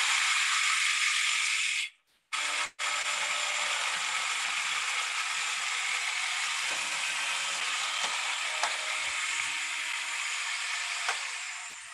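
Food processor running, its blade chopping cilantro chimichurri while oil is streamed in to make it creamy. It stops twice briefly about two seconds in, starts again, and winds down near the end.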